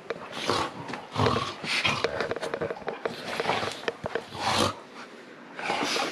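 A goldendoodle and a sheepadoodle play-fighting, with a run of short, rough growls and snarls about every half second to a second.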